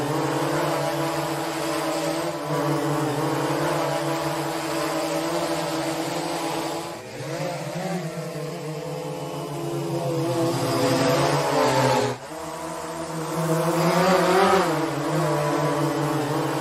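Quadcopter drone's propellers buzzing steadily, the pitch wavering up and down twice. The sound dips briefly about seven and twelve seconds in.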